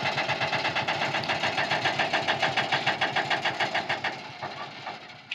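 Ashok Leyland tipper lorry's diesel engine running with a rapid, even chugging, growing fainter over the last second or so.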